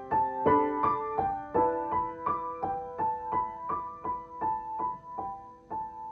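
Steinway grand piano played solo: a melody of single notes over sustained lower notes, a little under three notes a second, growing steadily quieter and ending on a note left ringing near the end.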